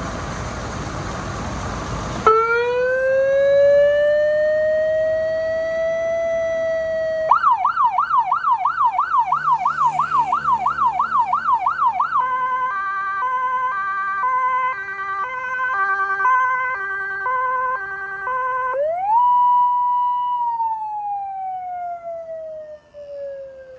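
Electronic emergency-vehicle siren run through its tones: a slow rising wail, then a fast yelp of about four sweeps a second, then a stepped hi-lo pattern of alternating tones. It then rises to a held tone that slowly winds down near the end. It opens with about two seconds of rushing noise.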